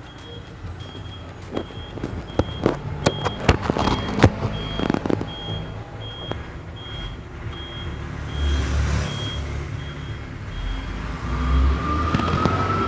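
A short, high electronic beep repeating about twice a second, with a run of sharp clicks and knocks in the first few seconds and low rumbles later on.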